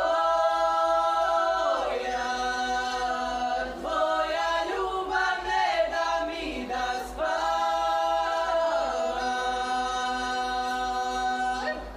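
A women's folk group singing a traditional song together, unaccompanied, in long held chords. The song stops just before the end.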